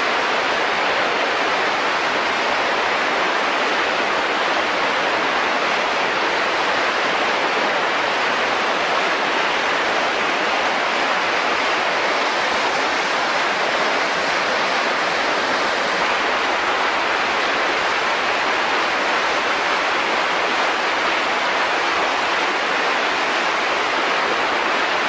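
Steady rushing of a river in high flood, churning through large standing waves.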